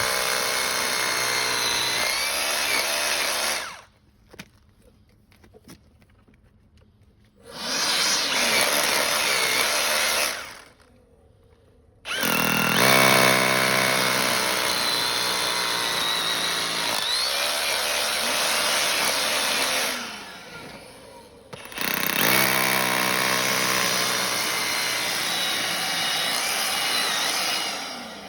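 Power drill boring anchor-bolt holes in the pavement, in four runs with short pauses between them.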